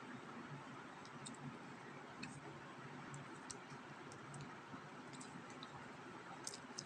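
Homemade slime being mixed: faint, irregular sticky clicks over a steady hiss.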